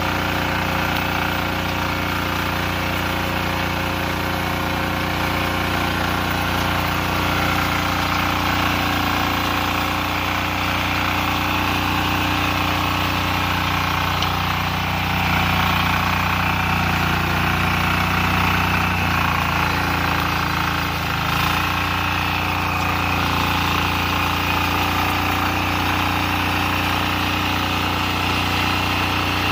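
Power weeder's single-cylinder air-cooled diesel engine running steadily under load as its rotary tines till the soil.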